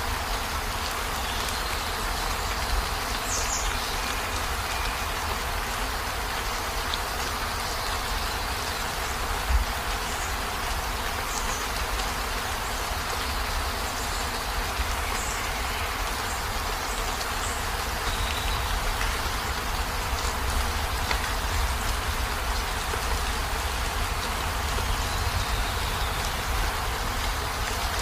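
Steady heavy rain, a dense even hiss over a deep low rumble, with one brief thump about ten seconds in.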